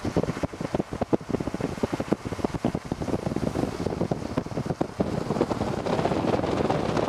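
Wind buffeting the microphone in irregular rapid gusts.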